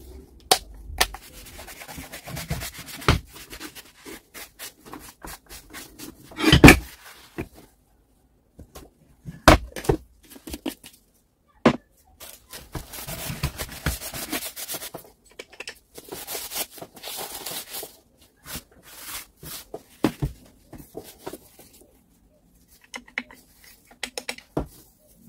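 Hand-handling noises: stretches of rubbing and scraping broken by scattered sharp clicks and knocks. The loudest knock comes about six and a half seconds in. No motor is running.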